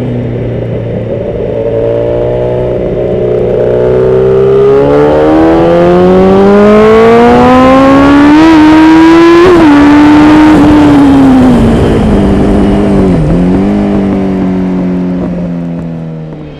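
Honda CBR954RR Fireblade inline-four running through a Dominator aftermarket silencer. The revs climb steadily for several seconds, hold briefly, then fall back, with a short dip about thirteen seconds in before settling lower.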